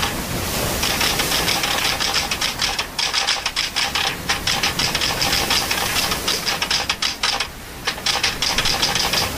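Typewriter keys clattering in rapid runs of keystrokes, a typing sound effect, with short breaks about 3 and 4 seconds in and a longer pause around 7.5 seconds.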